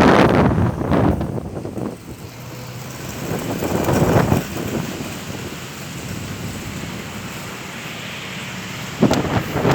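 Strong gusty wind blowing hard, buffeting the microphone. It rushes steadily, with loud gusts surging at the start, about four seconds in, and again near the end.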